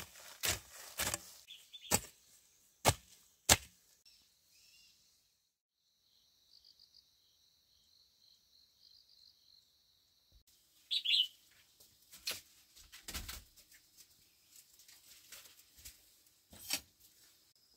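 A series of sharp knocks or snaps, about six in the first four seconds and a few more later on, with birds chirping faintly in a quieter stretch in the middle.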